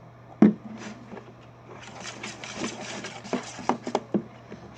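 A spoon stirring a glue-and-glitter slime mixture in a bowl: one sharp knock about half a second in, then from about two seconds in a run of quick, irregular stirring strokes.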